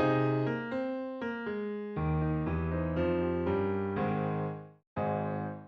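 Background music on an electric piano: struck notes and chords that decay, a fuller chord change about two seconds in, and a last chord near the end that fades out.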